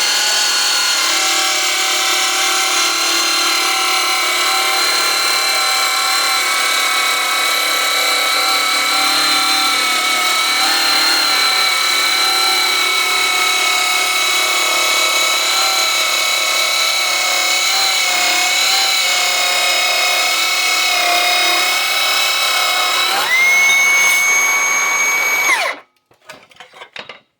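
Milwaukee M18 8-inch cordless metal-cutting circular saw cutting through 1-inch steel plate: a loud, steady whine under load. About 23 seconds in, the pitch rises sharply as the blade breaks through and runs free. A couple of seconds later the saw cuts off abruptly.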